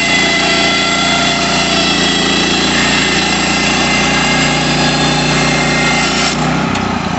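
Woodland Mills HM126 portable bandsaw mill running, its small gasoline engine driving the band blade with a steady engine note and a high whine. A little over six seconds in, the high whine fades and the engine note drops lower.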